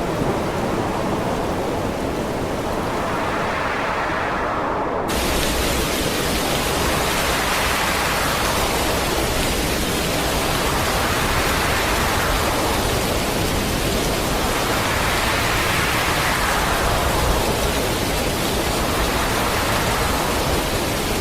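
Steady rushing noise of heavy storm rain and wind, swelling and easing about every four seconds, with an abrupt change in tone about five seconds in.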